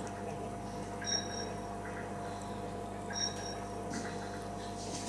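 Steady hum of an aquarium filter pump with faint water trickling. Two brief high chirps cut in, about one second and three seconds in.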